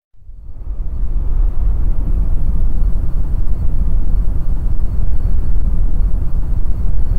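Deep rumbling sound effect for an animated logo reveal, heaviest in the low end, swelling up over the first second and then holding steady.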